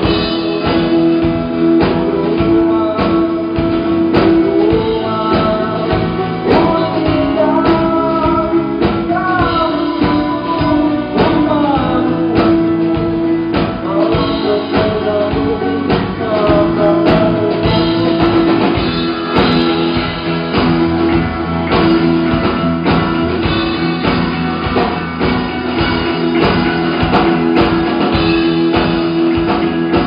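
Live song: a man singing into a microphone over a strummed acoustic guitar, the vocal phrases coming and going over steady strumming.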